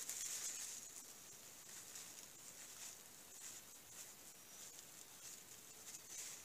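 Near silence: a faint steady high hiss with a few soft, scattered ticks.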